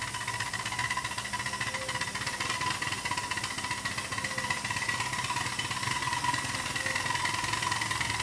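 7¼-inch gauge model Climax locomotive running along the track, a steady whine over a fast, even mechanical rattle.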